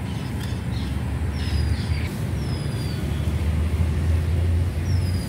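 Steady low rumble of outdoor background noise, heaviest near the end. Over it a bird gives three short whistles, each falling in pitch.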